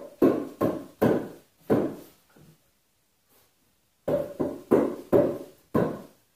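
Hollow wooden knocks as the log cross pieces and corner posts of a log headboard are knocked into alignment: four knocks, a pause, then five more, each ringing briefly.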